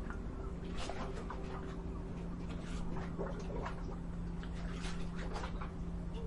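Harbour ambience: a steady low rumble and hum, with frequent short, high squeaks and calls scattered over it.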